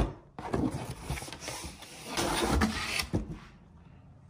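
Molded pulp packing insert and cardboard box flaps scraping and rustling as the insert is pulled out of a rice cooker's shipping box, with a few sharp knocks. It fades to faint rustling near the end.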